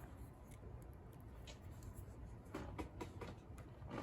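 Faint, scattered small clicks and scrapes of lock picking tools working in the keyway of a laminated padlock.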